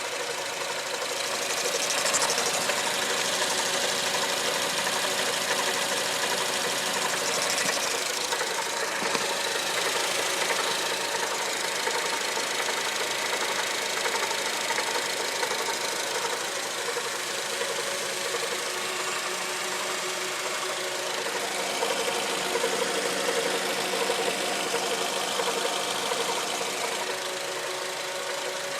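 2005 Acura TSX's 2.4-litre four-cylinder engine running steadily, with an unidentified noise that the owner finds loudest around the transmission.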